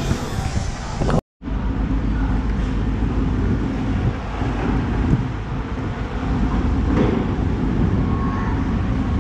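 Busy fish-market ambience: a steady low rumble of engines and traffic under a general hubbub. The sound drops out for a moment about a second in.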